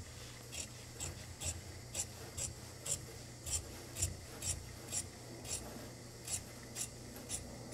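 Large tailor's shears cutting through coat fabric in a steady run of short snips, about two a second, as the blades close and advance along the line. The excess is being cut away to take in the body of a Burberry half coat.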